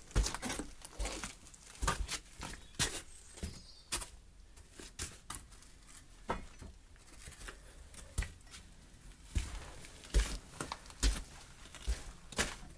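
Irregular knocks, clicks and scrapes of timber being handled and taken apart as a wooden arch former is dismantled.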